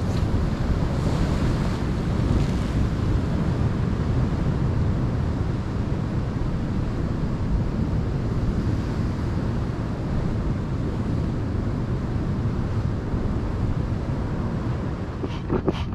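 Wind buffeting the microphone over sea surf breaking against a rocky shore: a steady low rushing noise. Near the end, a quick run of evenly spaced rhythmic strokes begins.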